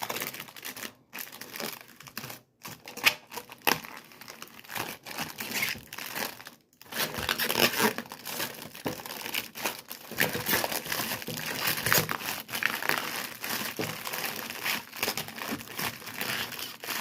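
Continuous irregular crinkling and crackling, as of something being handled or squeezed, broken by a few short pauses in the first seven seconds.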